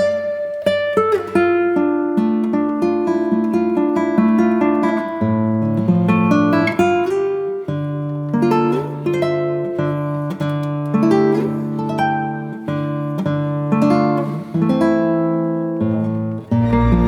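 Background music: plucked acoustic guitar playing a picked and strummed melody over changing bass notes.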